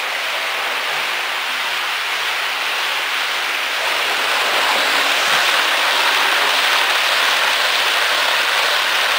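Model train, a model of the 060-EA electric locomotive hauling passenger coaches, running on the layout's track: a steady rattle of wheels on the rails that grows louder about four seconds in as the coaches pass close by.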